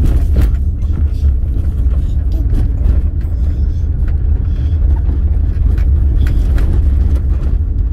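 Car driving, heard from inside the cabin: a steady low rumble of engine and road noise, with a few faint knocks.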